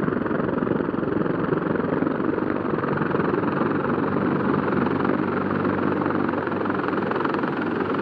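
CH-53E Super Stallion heavy-lift helicopter hovering low. Its rotor and three turboshaft engines make a loud, steady noise that holds level throughout.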